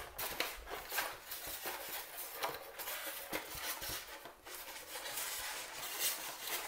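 Plastic and foam packaging being handled: rustling and crinkling with many small clicks and knocks.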